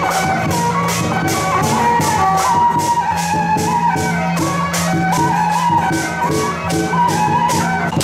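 Festival music accompanying a dragon dance: a melody line over a steady low drone, with cymbal crashes and drum beating a quick even pulse of about three to four strikes a second.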